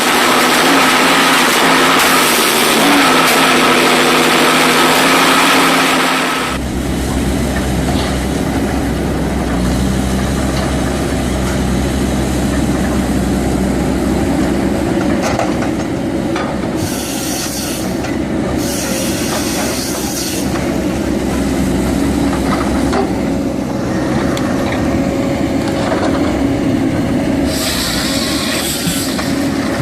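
Heavy machinery running. For the first six seconds there is a loud, noisy sound with a few steady tones. It changes abruptly to a low, steady engine hum with short spells of hissing over it.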